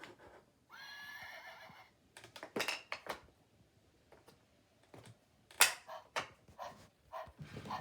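A farm-animal sound puzzle playing a recorded horse whinny through its small speaker for about a second, followed by a series of sharp clicks and knocks of puzzle pieces being handled and set into the board.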